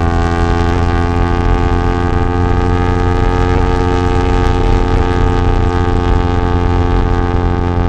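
2023 Yamaha R3's parallel-twin engine through an Akrapovic full-system exhaust, held at a steady raised rpm, its pitch creeping slightly upward.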